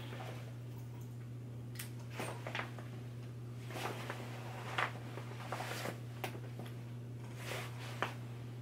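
Faint scattered clicks and rustles of someone rummaging through a bag for the loose parts of a disassembled fishing reel, over a steady low hum.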